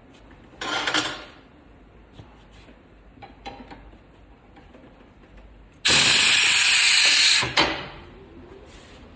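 Compressed air hissing in bursts: a short blast about half a second in, a few faint clicks, then a long, loud steady blast of about a second and a half near the end, followed by a brief one.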